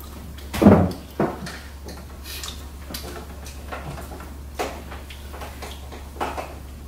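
Light knocks and clinks of dishes and cutlery at a dining table during a meal, with one louder bump a little under a second in, over a steady low hum.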